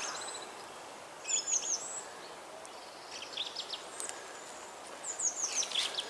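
A small songbird singing short phrases of quick high notes that drop in pitch, three times, over a steady faint hiss of woodland ambience.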